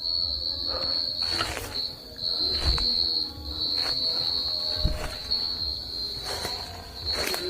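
Insects trilling in the forest at dusk: one steady, high, unbroken tone. It is crossed every second or so by short rustles and crunches, which may be footsteps in the leaf litter.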